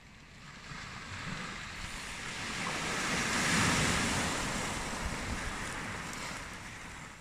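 A wave breaking on a pebble beach: the rush of surf builds, peaks about halfway through, then fades as the water runs back over the stones.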